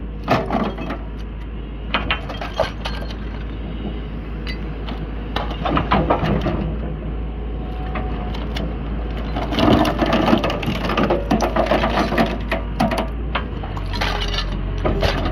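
Excavator-mounted hydraulic demolition jaws crushing and tearing apart an electric motor for scrap recycling: bursts of metallic cracking, crunching and clinking come in clusters, busiest about ten seconds in, over the steady low drone of the excavator.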